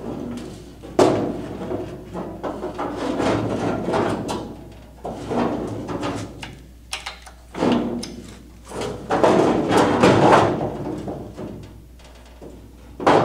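Ford F100 steel truck bed panels being shifted and fitted together by hand, sheet metal scraping, sliding and clanking in irregular bursts, with a sharp clank about a second in and another at the very end.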